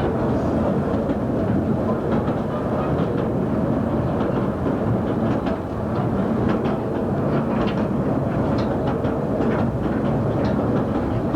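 Narrow-gauge train running along the track: a steady rumble of wheels on rails, with scattered irregular clicks and rattles.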